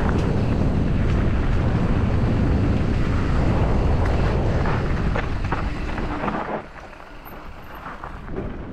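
Wind rushing over the helmet-camera microphone, mixed with tyre noise and scattered clicks and rattles from a 2020 Kona Process X mountain bike descending a dirt trail at speed. About six and a half seconds in, the noise drops off sharply and stays lower.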